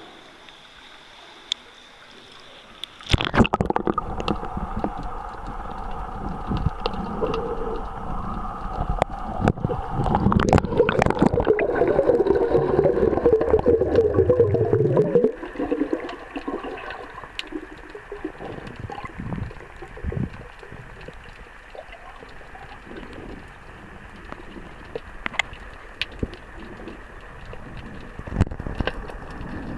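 A camera dipping under the sea's surface about three seconds in: water sloshing and bubbling over the microphone, loudest between about 10 and 15 seconds, then muffled underwater sound with scattered clicks.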